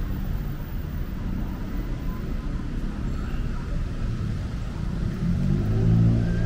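City street traffic: a steady low rumble of passing motor vehicles, with one engine note growing louder near the end as a vehicle draws close.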